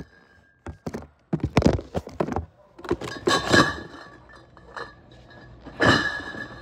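Cardboard cases of glass beer bottles being lifted and set down on a stack, giving a run of dull thunks with the bottles clinking inside. The biggest knocks come about halfway through and near the end.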